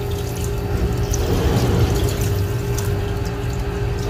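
Tap water running steadily into a sink as a wet toupee's hair is rinsed under the stream by hand.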